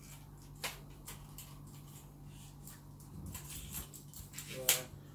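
Light clicks and handling noise from the plastic parts of a budget camera tripod being turned over in the hands, with two sharper clicks, one about half a second in and one near the end. A steady low hum runs underneath.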